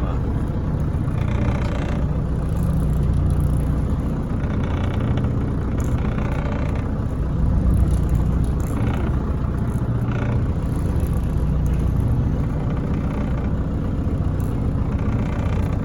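Boat engine running steadily, a low rumble, with short hissy noises several times over it.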